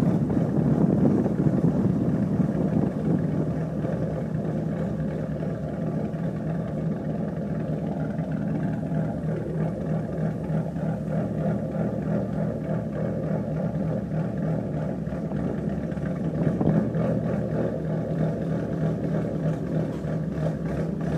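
2013 Ford Mustang's V6 running through an X-pipe and Roush exhaust, heard from outside the car while driving slowly. It is louder under throttle for the first couple of seconds, then settles to a steady low drone at light cruise.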